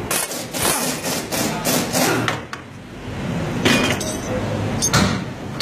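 Irregular metallic clanks and knocks of tools and metal parts during repair work on a pickup's front suspension, several in quick succession in the first two seconds and a few more later on.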